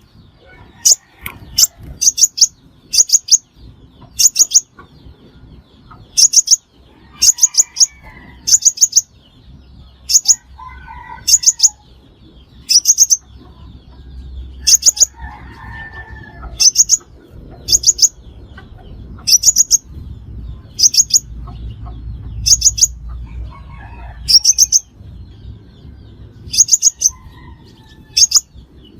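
Sunbird call used as a trapping lure: loud bursts of two to four very high, sharp notes, repeated about once a second. Fainter, lower chirps sound between the bursts.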